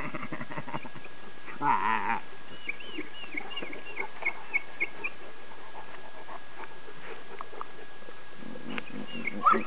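A Fila Brasileiro dog making grunting, whining sounds: a short low grumble about two seconds in, then a run of short high squeaks, and more grunts near the end.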